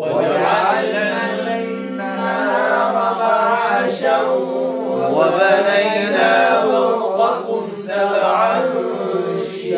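A man reciting the Quran in a slow, melodic chanted style, holding one long unbroken phrase whose pitch rises and falls.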